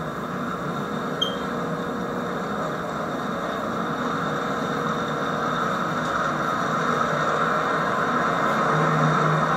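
HO-scale model train running along the layout's track, a steady rolling rumble mixed with tape hiss, growing a little louder near the end.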